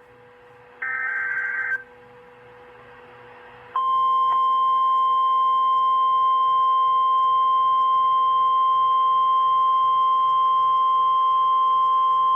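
NOAA Weather Radio Emergency Alert System signal. About a second in, a roughly one-second burst of warbling SAME digital header data is heard. After a short pause, the steady 1050 Hz warning alarm tone sounds for about nine seconds, announcing that a warning-level alert follows. A faint steady hum runs underneath.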